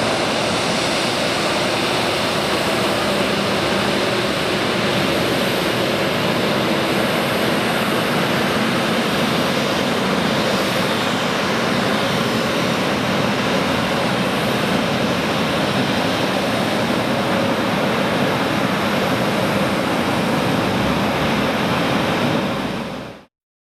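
Embraer 190 jet taxiing, its twin General Electric CF34-10E turbofans running at low taxi power: a steady rushing hum with a faint whine. It fades out sharply near the end.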